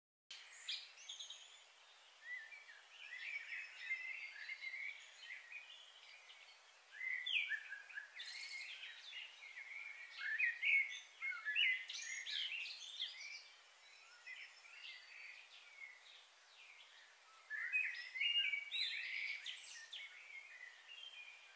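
Several small birds chirping and singing in short trills, in three busy clusters with quieter stretches between, over a faint steady hiss.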